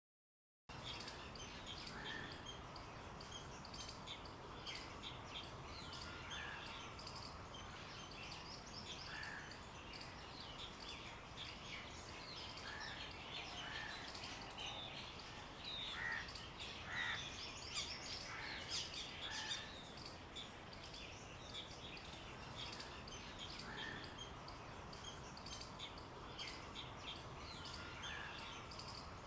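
Many small birds chirping and calling at once, short high notes overlapping throughout, with a lower short call repeating every second or two over a faint steady background hiss. The sound starts abruptly just under a second in.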